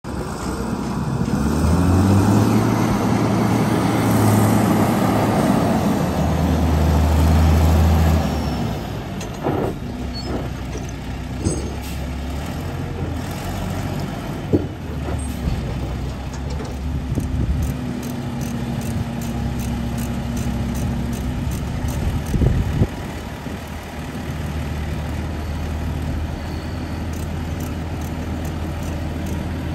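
1997 Panien PR265.10E 4x4 sander truck's diesel engine, working hard and changing pitch for the first eight seconds as the truck pulls in, then settling to a steady idle. A few short sharp knocks come over the idle.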